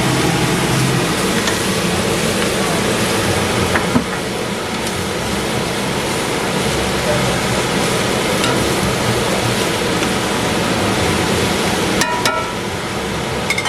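Food sizzling in a hot pan: a steady, loud frying hiss, with a couple of short knocks near the end.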